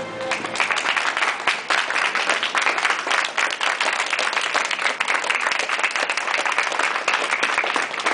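A crowd applauding with dense, steady hand-clapping that starts about half a second in, just as the music ends.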